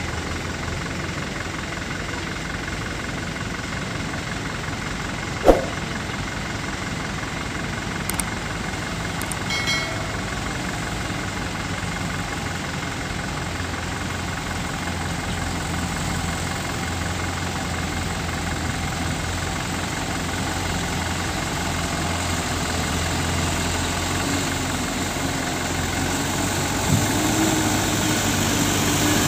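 Light diesel dump truck engines running as the trucks climb the dirt road, the sound growing louder as one draws near and passes. A single sharp knock about five and a half seconds in.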